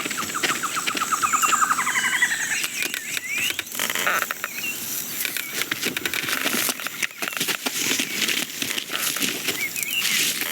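Nature ambience from an animated film's sound-effects track: short bird chirps over dense rustling and clicking, with a fast pulsed trill that falls in pitch in the first couple of seconds.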